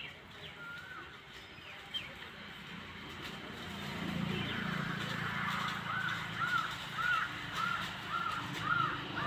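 A bird calling over and over, short rising-and-falling notes about two a second, starting a little past the middle. A low steady hum comes up beneath it about four seconds in.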